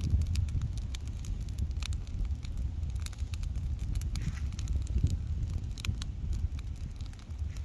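Pile of dry leaves burning, with frequent sharp, irregular crackles and pops over a steady low rumble.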